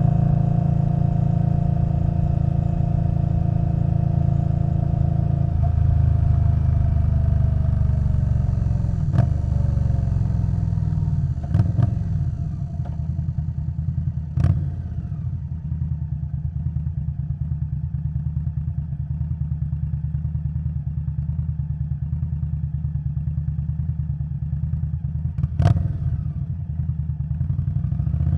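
A 2021 Indian Scout Bobber Twenty's liquid-cooled V-twin running through a Vance & Hines Twin Slash exhaust while riding. The engine note drops as the bike slows, then settles into a quieter, steady run. A few sharp clicks or knocks cut through, the strongest near the end.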